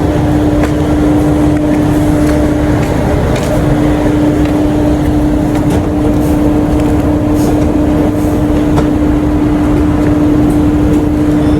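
A vehicle running steadily: a continuous rumble with a constant droning hum that holds one pitch, and a few faint clicks.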